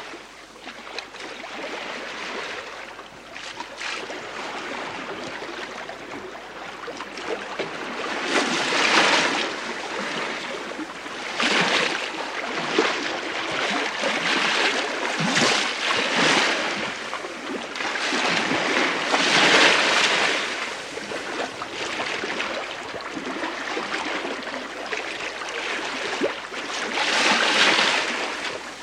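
Bow wave of the three-masted schooner STS Malcolm Miller sailing in a light wind, heard from the lee quarter: a continuous rush and hiss of water along the hull, swelling and easing every few seconds.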